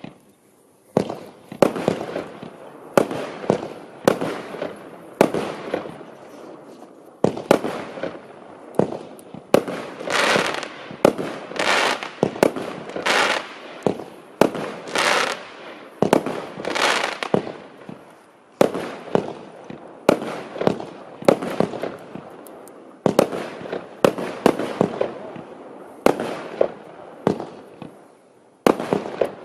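Klasek Fearful War 25-shot fireworks cake firing. About a second in, the shots begin, roughly one to two a second: each is a sharp launch bang followed by the shell bursting. Denser crackling and hissing from the crackling-flower and strobe effects fill the middle, and there are a couple of brief lulls.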